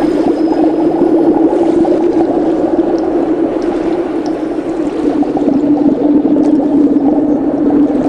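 Muffled, steady rushing and gurgling of water picked up by a camera held under the surface.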